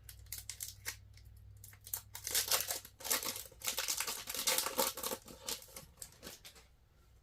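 Trading card pack wrapper crinkling and tearing as it is opened by hand: irregular crackling, faint at first, loudest in the middle and stopping about half a second before the end.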